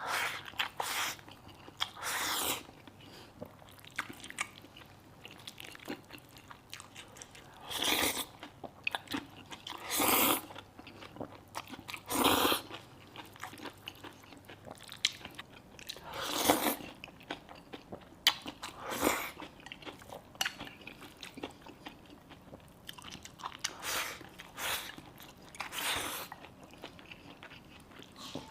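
A person eating close to the microphone: chewing and biting into steamed eggplant, century egg and rice, with louder noisy bursts every few seconds.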